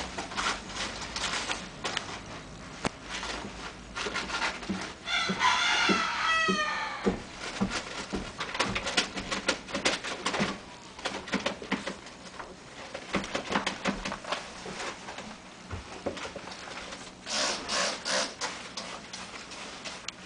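Two drawn-out, wavering animal calls, the first about five seconds in and lasting about two seconds, the second shorter near the end. Soft clicks and rustles run throughout.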